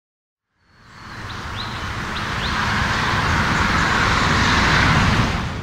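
Motorway traffic rushing past, fading in about half a second in and building steadily, with a few short high falling chirps between one and two and a half seconds; it drops away at the very end.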